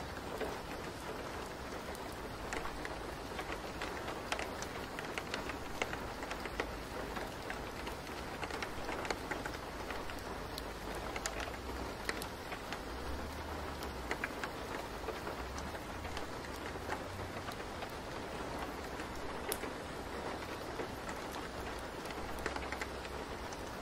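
Steady rain falling, with scattered sharp drop ticks over an even hiss.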